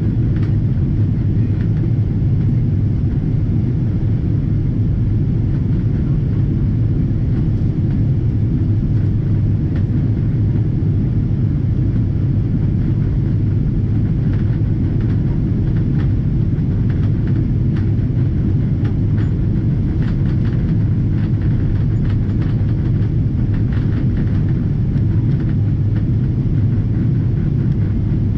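Steady low rumble inside the cabin of a Boeing 777-200ER, its engines and airflow running at a constant level, with faint light rattles from the cabin.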